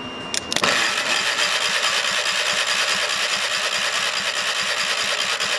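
A couple of sharp clicks as the lead touches the starter, then the electric starter cranks the opposed-twin John Deere Gator engine over steadily with a fast, even pulsing. The engine turns but does not catch: its ignition coil gives no spark.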